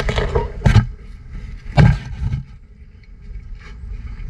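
Rhinos crunching and chewing a pumpkin close to the microphone, with two loud thumps about a second apart early on, then quieter crunching and rustling.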